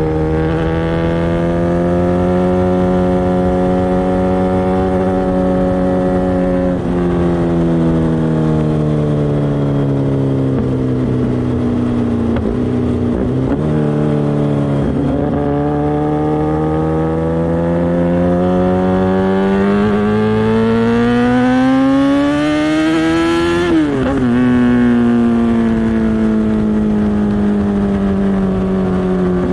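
Kawasaki ZX-10R's inline-four engine through an SC-Project exhaust, running under way. The engine note holds, sags, then climbs steadily for about ten seconds before dropping abruptly about three-quarters of the way through, and it eases down after that.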